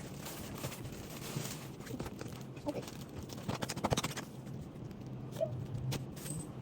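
Unboxed merchandise and packaging being handled on a surface: scattered light taps and knocks with some rustling, a quick run of taps about four seconds in.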